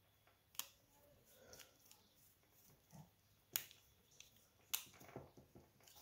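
Small screwdriver working the screw terminals of a DC power plug: three sharp little clicks a second or more apart, with faint ticks of handling between, over near silence.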